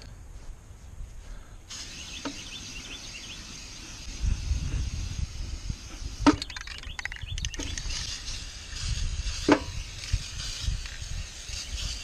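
Aerosol can of Krylon metallic spray paint hissing as it is sprayed, starting sharply about two seconds in and running on with short breaks. A few sharp clicks, the loudest about six and nine and a half seconds in, over a low rumble.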